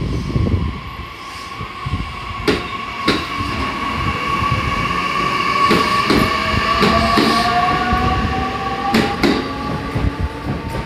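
JR West 227-series electric multiple unit pulling out of a platform: its motor whine rises steadily in pitch as it accelerates, over a low rumble, with a series of sharp clacks as the wheels cross rail joints.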